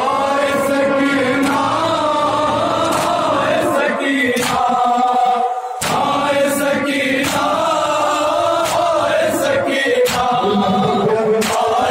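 A crowd of men chanting an Urdu noha, a mourning lament, in unison, with sharp slaps of hands striking chests in matam roughly once a second.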